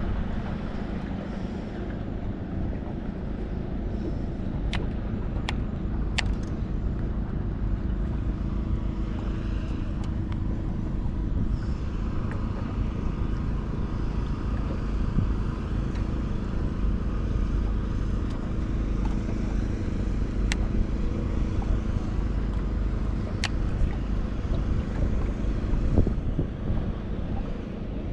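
Wind buffeting the microphone over a low rumble of water and boat, with a faint steady hum and a few sharp ticks scattered through.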